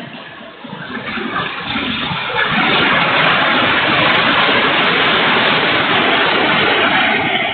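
Heavy typhoon rain and wind: a dense, even noise that dips briefly at the start, then builds about two and a half seconds in and holds loud and steady.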